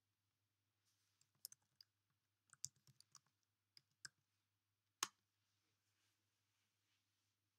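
Faint typing on a computer keyboard, a quick uneven run of key clicks, then one louder click about five seconds in.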